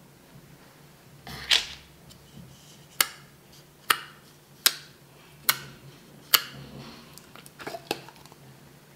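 Clear homemade water slime in a plastic tub being poked with a finger, giving about seven sharp clicking snaps roughly a second apart.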